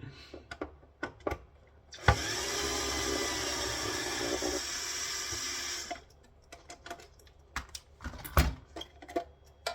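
Cordless power drill running for about four seconds. It spins up with a rising whine about two seconds in, runs steadily, then cuts off suddenly. Small clicks and a knock come from parts being handled before and after.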